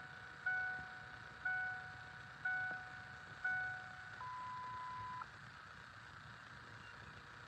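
Electronic dashboard chime of a 2000 Ford Explorer ringing about once a second as the ignition is switched on. It is followed about four seconds in by a single steady beep lasting about a second, typical of an OBD2 scan tool powering up.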